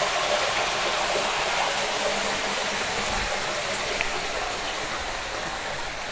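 Steady rush of running water from a shallow stream, slowly growing fainter.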